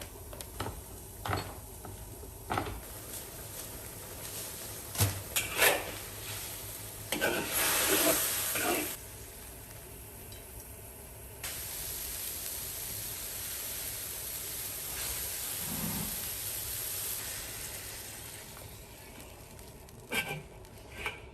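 Cooking and eating sounds: utensils clinking and scraping on dishes, with a steady hiss like food frying that starts abruptly about halfway through.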